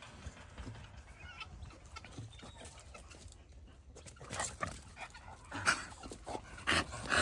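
American Bully dogs in their kennels, making dog noises and moving about, with scattered clicks and knocks; the loudest sounds come in the second half.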